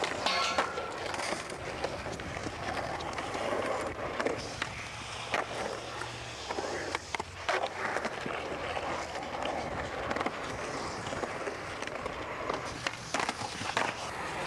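Skateboard wheels rolling on concrete, broken by several sharp clacks of board pops and landings, with a cluster of them near the end.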